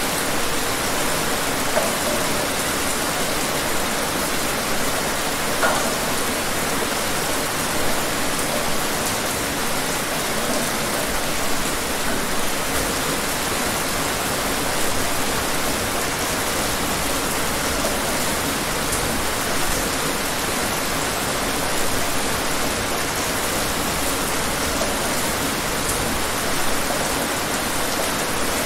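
Steady rain falling, an even hiss of many drops with small irregular swells.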